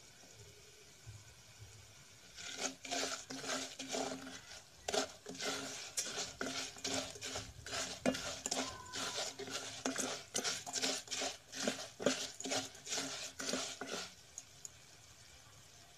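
Plastic spoon stirring and scraping broken spaghetti pieces around a metal pot as they fry in oil to a golden brown, in quick repeated strokes that start about two and a half seconds in and stop near the end.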